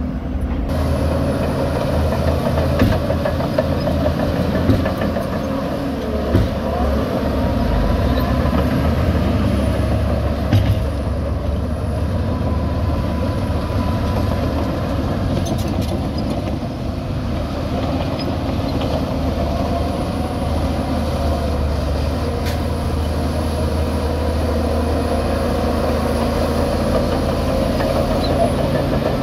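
Shantui DH17 C2 crawler bulldozer's diesel engine running steadily under load while it pushes dirt, with a few faint clanks.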